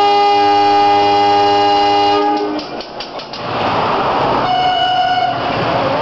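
Diesel locomotive horn sounding one long chord-like blast of about two and a half seconds: the Semboyan 35 signal, which tells that the train is ready to depart. After a cut, a rushing rumble of a train runs on, and a shorter horn blast of under a second sounds through it.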